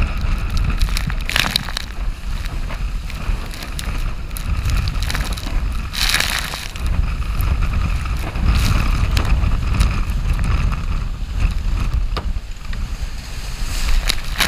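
Storm wind buffeting the microphone over the rush of water along a Class 40 racing sailboat's hull as it sails fast and heeled. Several hissing bursts of spray come over the deck, a big one near the end.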